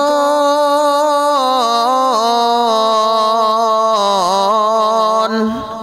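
A man singing a Bengali gazal, drawing out one long sung note with small ornamental turns in pitch, which fades away about five seconds in.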